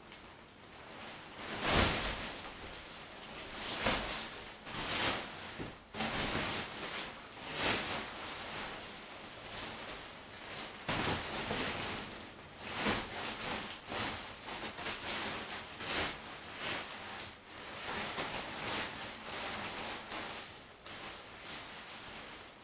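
Pop-up tent's fabric rustling and crumpling in an irregular run of swishes as the tent is twisted and folded down to pack it away.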